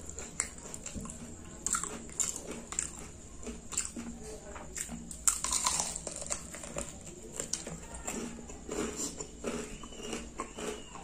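Eating sounds of fried chicken coated in spicy sauce being bitten and chewed, with short mouth clicks and smacks throughout. The loudest bite comes about five seconds in.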